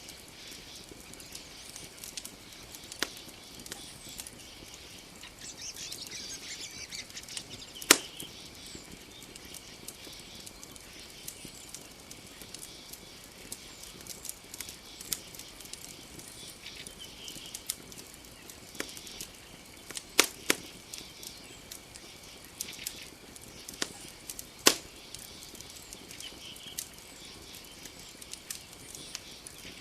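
Wood campfire crackling, with scattered small ticks and a few loud sharp pops about 8, 20 and 25 seconds in, over a faint steady high-pitched hum.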